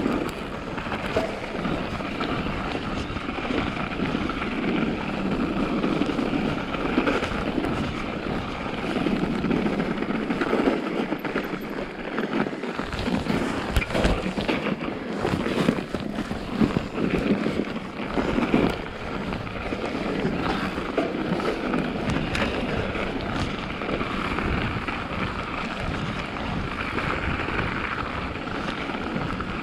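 Mountain bike ridden along a snowy trail: steady tyre noise on the snow, the bike clattering over bumps, and wind on the microphone.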